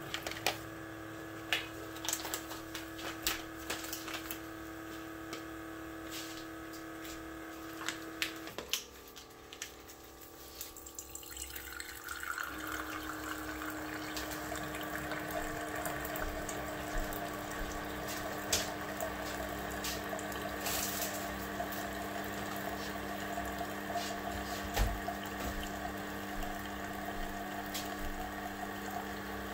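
Single-serve pod coffee maker brewing: its water pump hums steadily with scattered ticks, drops away about eight seconds in, then starts again about four seconds later as hot coffee streams hissing and gurgling into the mug.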